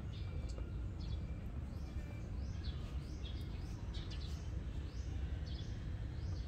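Small birds chirping, a string of short high rising-and-falling chirps repeating about every half second, over a steady low background rumble.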